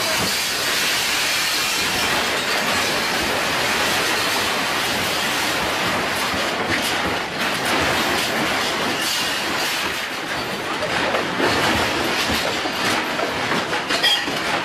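A room in the violent shaking of a magnitude-9 earthquake: a loud, continuous rumble and rattle of shelves, furniture and loose objects, with scattered sharper knocks.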